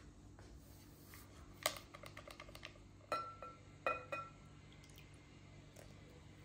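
Baking powder tipped from a small packet into a glass mixing bowl, a sharp tick followed by about a second of soft little ticks and rustles. Then a metal spoon clinks twice against the glass bowl, each clink ringing briefly.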